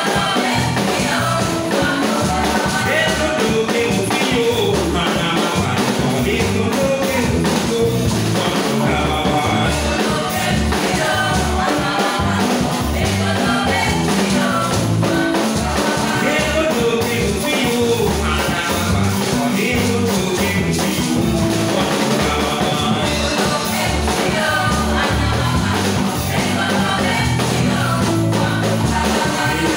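Upbeat church praise music with singing over a steady beat.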